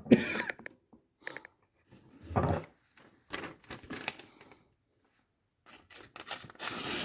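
A freshly sharpened hunting knife slicing through a sheet of paper in several short strokes, the paper crinkling and tearing, as a test of the edge's sharpness.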